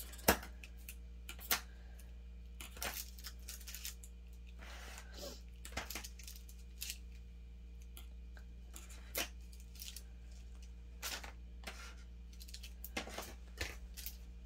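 Scattered light clicks and taps of small plastic nail supplies, swatch sticks and polish bottles, being handled and lined up on a table, with a brief rustle about five seconds in, over a low steady hum.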